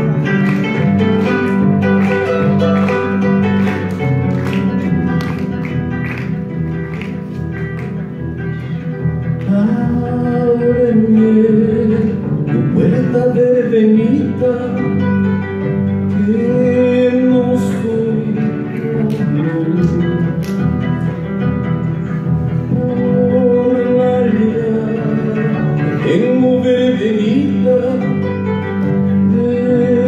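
Andean harp played live, a steady run of plucked notes over a bass line. From about ten seconds in, a voice sings along over the harp.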